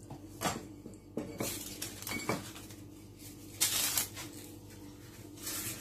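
A drinking glass used as a cutter on rolled doughnut dough, scraping against the floured board with a few short knocks and rubs; the loudest comes about three and a half seconds in.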